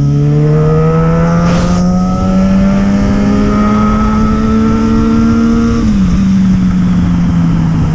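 Yamaha XJ6's 600 cc inline-four engine running under load, its pitch rising slowly and evenly, then dropping a step about six seconds in and holding lower.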